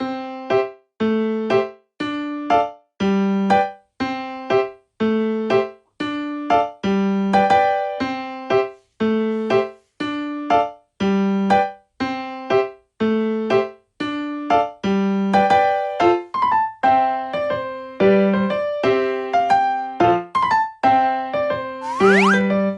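Background music on an electric piano: short notes in a steady, bouncy rhythm with brief gaps between phrases. Near the end, a rising whistle-like sound effect.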